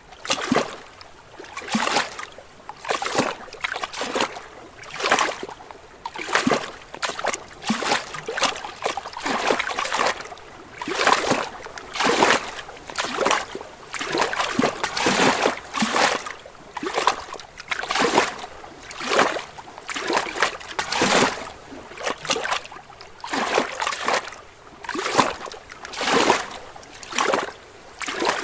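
Small lake waves lapping against rocks: an irregular run of short splashes, about one a second, some louder than others.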